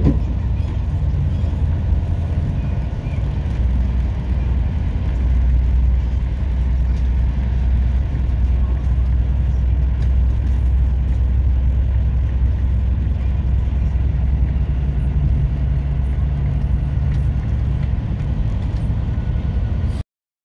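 Steady low rumble of a PKP Intercity passenger train running along the track, heard from inside the carriage. It cuts off suddenly near the end.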